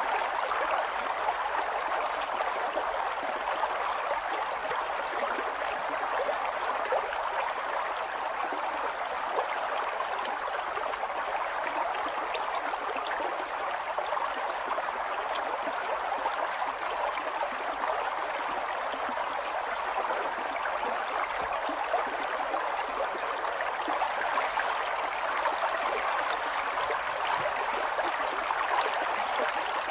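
Flowing water running steadily with a light, crackling babble, like a small stream.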